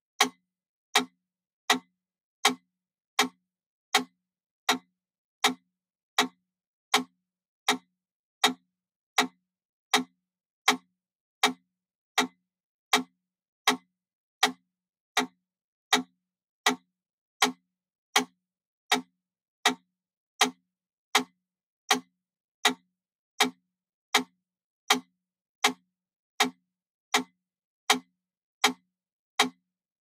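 Wooden mechanical pyramid metronome ticking steadily at 80 beats per minute: one sharp, even click every three-quarters of a second, with silence between clicks.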